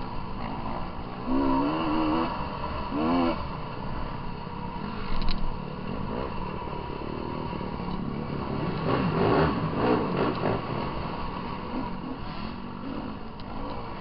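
Dirt bike engine revving up and down as it is ridden over a rough trail, its pitch rising and falling again and again, with rattling and clatter from the bike around the middle.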